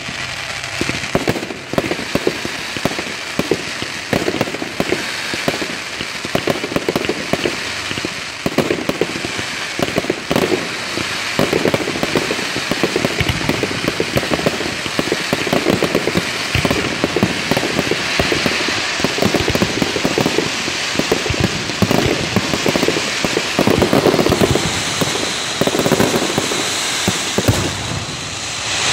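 Fireworks going off directly overhead at close range: a dense, unbroken crackle of many rapid sharp pops.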